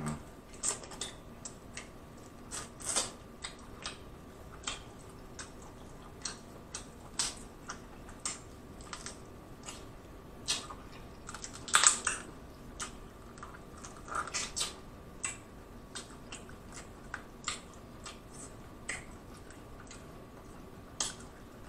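Close-up eating of king crab leg meat: irregular wet mouth clicks, smacks and chewing as the meat is bitten and sucked from the shell, with louder bursts now and then.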